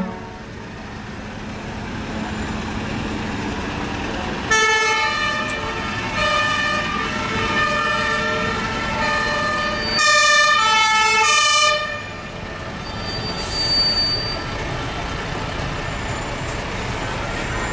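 Fire engines and rescue vans driving slowly past with engines running, one sounding its siren for several seconds in the middle, the pitch stepping between notes, loudest just before it stops.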